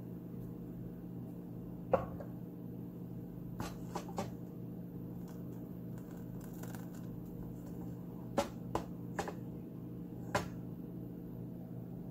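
A ladle stirring thick, boiled-down milk in a steel saucepan, knocking against the pan. There is one sharp tap about two seconds in, a few lighter taps around four seconds, and four more between about eight and ten and a half seconds, over a steady low hum.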